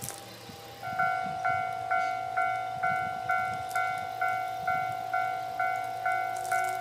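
Railway level-crossing warning bell starting up about a second in and ringing about twice a second, each ding decaying quickly: the crossing is closing for a train.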